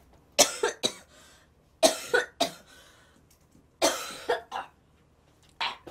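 A woman coughing in four short fits, about nine sharp coughs in all, in clusters of two or three.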